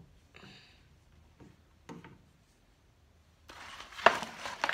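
Cardboard packaging being handled: a few faint knocks and rustles, then, about three and a half seconds in, a louder stretch of cardboard rubbing and rustling with a couple of sharp knocks.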